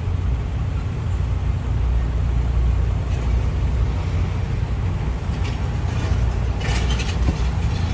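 Steady low rumble of road traffic heard from inside a car, with semi-trucks passing close by, and a brief clatter near the end.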